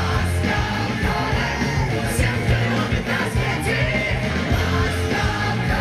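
Amplified live concert music with singing, played over a loud stage sound system and heard from within the crowd; heavy, steady bass with cymbal-like ticks on the beat.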